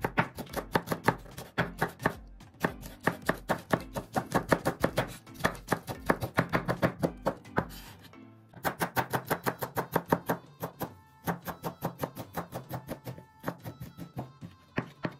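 Knife chopping rapidly on a cutting board, about five strokes a second, pausing briefly about eight seconds in before starting again.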